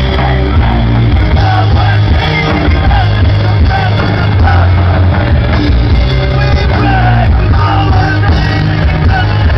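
Rock band playing live, with a singer over loud guitars, bass and drums. The recording is very loud and dense throughout, with a heavy, steady bass.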